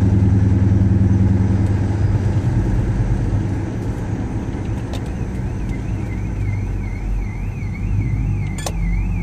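Low rumble of a car engine running, loudest for the first couple of seconds and then easing off. About five seconds in, a car alarm's siren starts faintly underneath, its tone rising and falling about twice a second.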